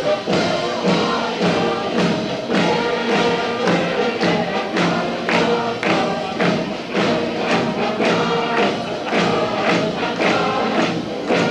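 Music with group singing over a steady beat of about two beats a second.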